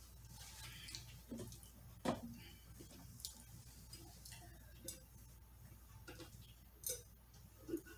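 Faint eating and drinking sounds: chewing and mouth noises, then sips and swallows from a glass, with a few small clicks and knocks, the sharpest about two seconds in.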